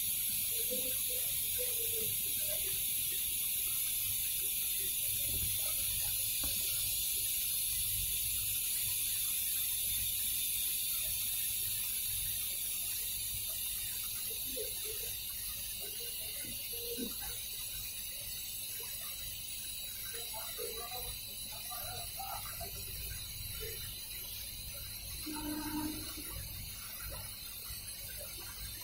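Siemens iQ100 front-loading washing machine running late in its cycle: a steady hiss over a low rumble that eases off slightly about halfway through. The owner reports a noisy motor and a faulty control board.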